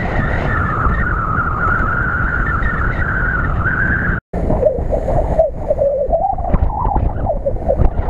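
Lada Niva engine running at high revs as the car drives through snow, its pitch wavering, with heavy wind rumble on the microphone. The sound drops out for a moment about four seconds in, and after that the engine runs at lower revs.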